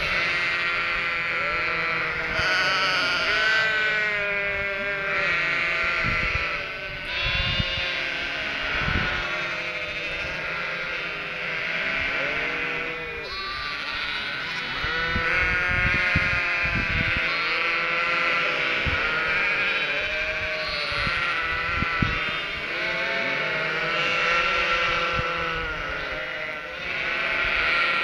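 A flock of Cotswold ewes and their young lambs bleating continuously, many deep and high calls overlapping. The flock is calling because it expects the farmer to bring food.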